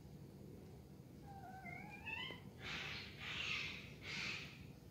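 A cat's wavering, slightly rising meow a little over a second in, followed by three short hisses as the orange kitten and the grey cat face off.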